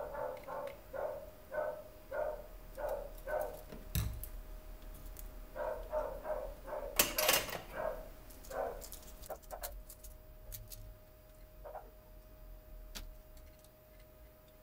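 A dog barking in two quick runs of short barks, about three a second, with sharp clicks of tools being set down on the workbench, the loudest about seven seconds in.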